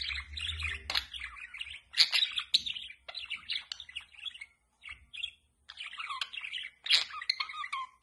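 Budgerigars chattering: a fast run of warbling chirps with sharp squawks mixed in, breaking off for a moment about halfway through.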